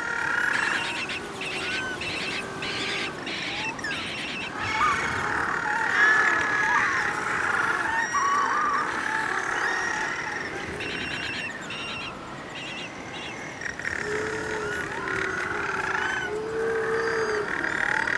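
A breeding colony of little penguins calling at night: many birds at once, with overlapping calls that rise and fall in pitch. In the last few seconds a few lower, drawn-out calls stand out.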